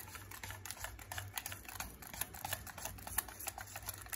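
Wire whisk beating batter in a stainless steel bowl, its wires clicking and scraping against the metal sides in rapid, irregular strokes.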